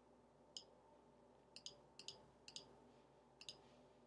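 Faint computer mouse clicks, mostly in quick pairs of press and release, as blocks are dragged and dropped, over a low steady hum.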